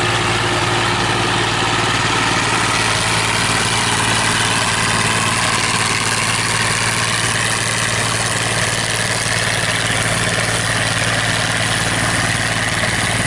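New Idea 705 Uni System with a Uni Chopper forage harvester running steadily under load while cutting corn and blowing silage into a forage wagon: a constant engine and machinery drone that holds an even level and pitch.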